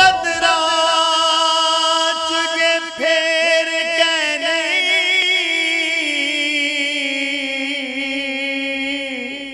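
A singing voice holding one long, wavering, ornamented note, sliding slowly lower, then fading out near the end.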